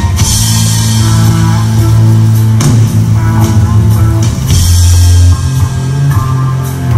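Rock music with a drum kit and heavy held bass notes that shift pitch about every two seconds, each change marked by a cymbal crash.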